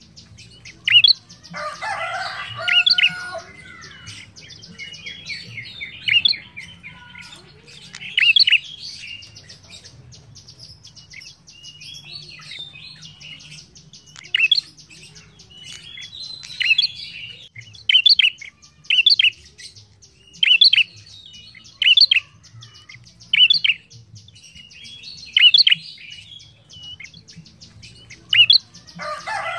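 Caged prenjak singing: loud, sharp chirping phrases repeated every second or two, with a softer run of chatter about two seconds in. A low, steady hum lies underneath.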